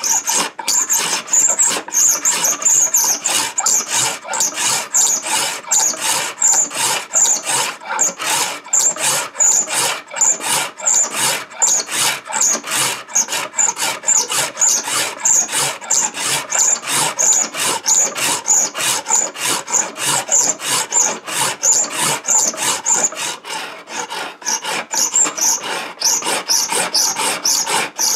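Shop-made scratch stock scraping a Grecian ogee molding profile into the edge of a wooden board, its cutter worked back and forth in quick, even strokes, a dry rasping scrape on each pass, several a second.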